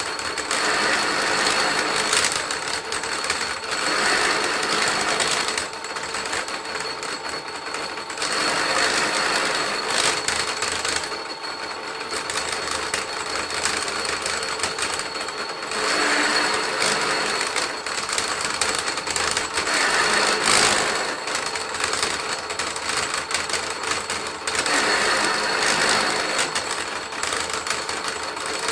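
Electric willow-rod splitting machine running with a steady high whine, growing louder and rasping for a few seconds at a time as willow rods are fed through and split into three or four strips, and dropping back between feeds.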